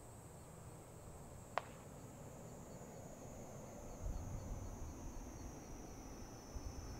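Faint outdoor ambience: a thin, steady high-pitched whine, a single sharp click about one and a half seconds in, and a low, uneven rumble that sets in about four seconds in.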